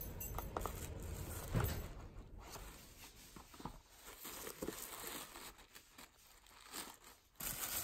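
Paper rustling and crinkling in irregular bursts as hands pull gifts out of a paper gift bag packed with tissue paper.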